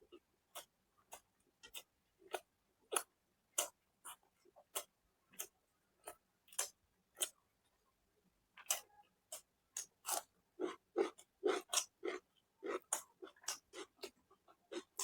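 Close-miked chewing with a series of short, wet mouth smacks and clicks, about one to two a second, coming faster and louder in the second half.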